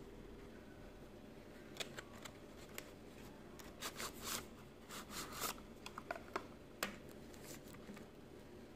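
Hands handling a cardboard box and sliding out a plastic-wrapped model bus: scattered light scrapes, rustles and taps, busiest from about four to five and a half seconds in, with a sharper tap about seven seconds in.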